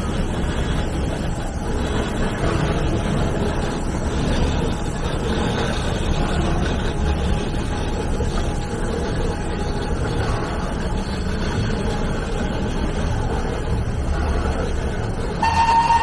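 Shay-type geared steam locomotive of the Alishan Forest Railway (SL21) running with a steady rumble. Its whistle starts blowing one steady tone about half a second before the end.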